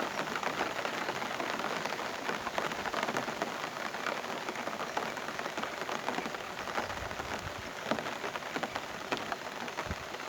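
Heavy rain falling steadily, a dense patter of countless drops striking surfaces.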